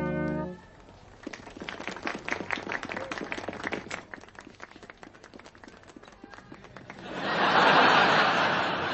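A held brass-band chord stops about half a second in. Scattered light clapping and taps follow, then a louder burst of audience applause near the end.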